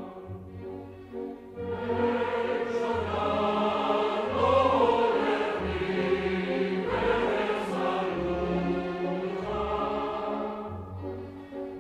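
Choir singing slow, sustained chords. It starts softly and swells to full voice about two seconds in, then eases off briefly near the end.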